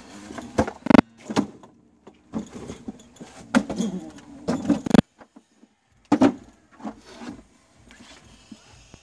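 Handling noise from an acoustic guitar being lifted and moved about: irregular knocks and bumps against its body, with a sudden drop-out about five seconds in.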